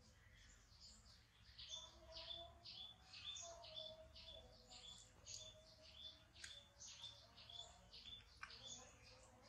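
Faint bird chirping: a rapid run of short, high chirps, several a second, some sweeping downward, over a fainter, lower wavering whistle.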